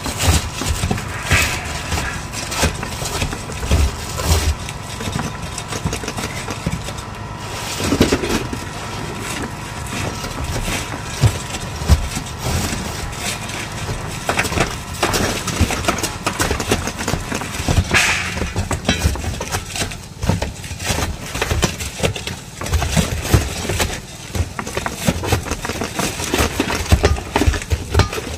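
Roof tear-off work: old asphalt shingles being scraped and pried loose, with irregular knocks, scrapes and debris clattering, over a steady engine hum.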